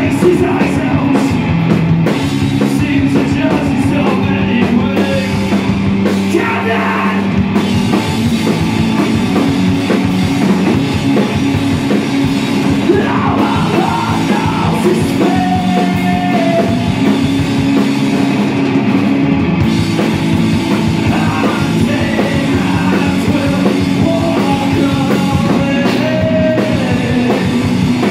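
Loud live rock music: a band with electric guitar and drum kit, and a man singing into the microphone.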